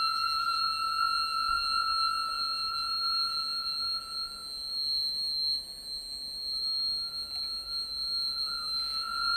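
Electronic sound-design score: a steady, high, ringing tone with several overtones held together, like an alarm or bell. The lowest pitch fades out about four seconds in and comes back about two seconds later.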